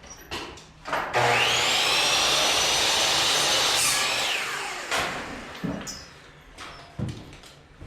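Electric power saw spinning up, running for about four seconds as it cuts wood, then winding down with a falling whine. A few short knocks of wood being handled follow.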